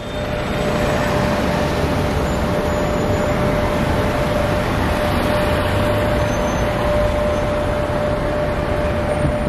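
Steady road-traffic noise with a constant tone held underneath, fading in over the first half second.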